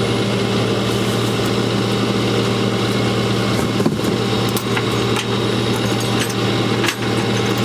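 Truck engine running steadily at idle, a low even drone, with a few sharp clanks about halfway through and again near the end as rigging is handled at the front of a car on the flatbed.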